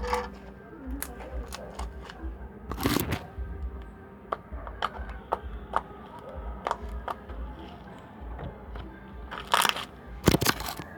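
Slime being squeezed and stretched by hand, giving irregular wet clicks and crackling pops.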